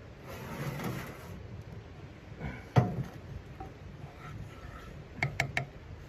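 Cookware being shifted on a steel wood-stove top: a frying pan scraping across the metal about a second in, a single sharp metal clank near the middle, then three quick clicks near the end as a wooden spatula goes into the pan.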